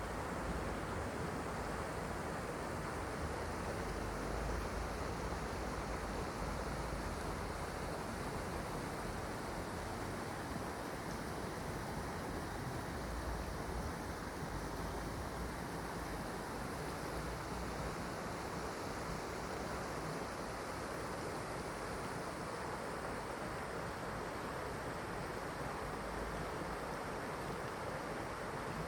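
Mountain stream water flowing steadily over rocks, a continuous even rush.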